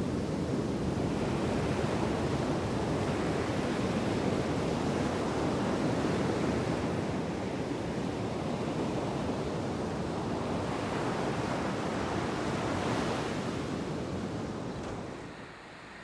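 Steady rushing wind and surf, easing off near the end.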